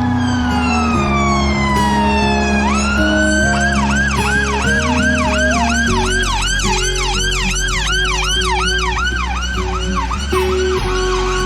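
Ambulance siren: one long wail falling in pitch, then a rapid yelp that sweeps up and down about two to three times a second. Background music with held notes plays underneath.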